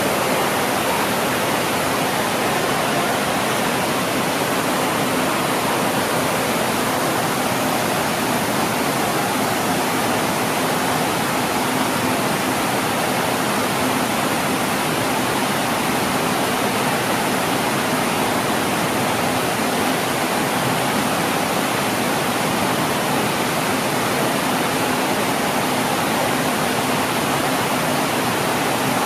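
Steady rushing of running water, even and unchanging.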